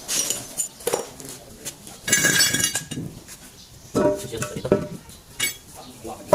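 Metal tools and brake parts clinking and clanking against each other in a series of sharp strikes, the loudest a ringing clank about two seconds in.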